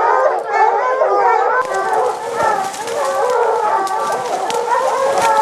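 A pack of hounds baying and howling, several dogs at once without a break. From about a second and a half in, leaves and twigs swish and crackle close by as the brush is pushed through.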